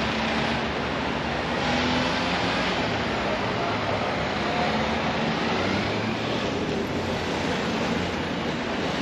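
Road traffic: vans and cars driving past close by, engines running and tyres on the road, a steady continuous noise.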